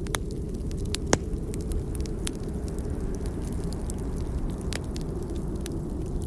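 Burning logs crackling, with sharp irregular pops and the loudest pop about a second in, over a steady low rumble.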